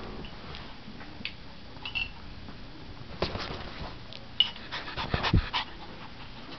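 Small puppy playing on a bed: a couple of brief high squeaks, then about five seconds in a quick run of sharp knocks and rustles as it moves about in the bedding.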